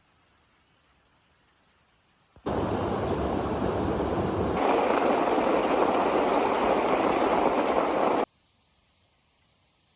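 Loud rushing water noise that starts abruptly after about two seconds of near silence, grows louder and brighter about two seconds later, and cuts off suddenly about eight seconds in.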